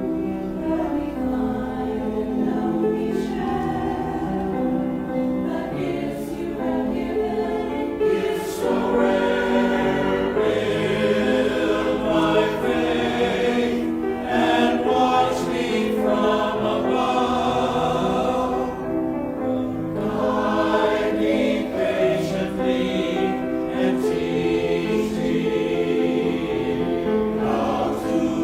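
Choir singing a hymn with instrumental accompaniment, held notes and moving harmony lines.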